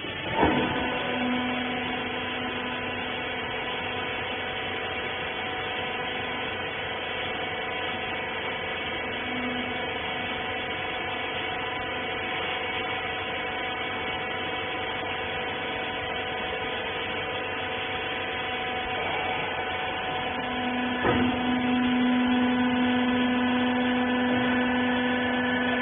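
Electric motor and hydraulic pump of a rag baler running with a steady hum. A knock comes about half a second in and again about 21 seconds in, after which the hum grows louder with a stronger low tone.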